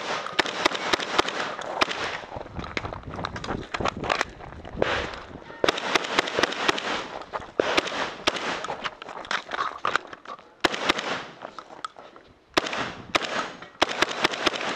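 Rapid fire from an AK-pattern, magazine-fed semi-automatic shotgun, shot after shot in quick strings with short pauses between them. The longest pause comes about twelve seconds in.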